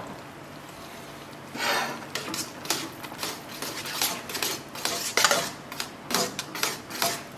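A spatula stirring a thick velouté sauce in a frying pan, scraping and knocking against the pan's bottom and sides in irregular strokes that start about a second and a half in.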